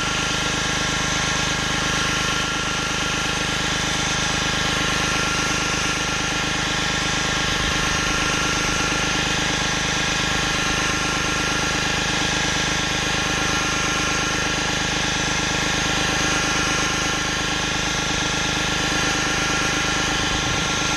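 Pressure washer running steadily, with the hiss of its water spray on concrete.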